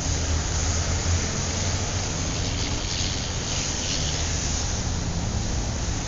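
Steady road and engine rumble heard inside a moving car's cabin, with a hiss of tyre and wind noise that grows stronger about three seconds in.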